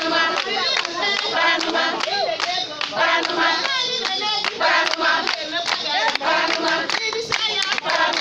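A group of women singing together with steady rhythmic hand clapping, about two to three claps a second.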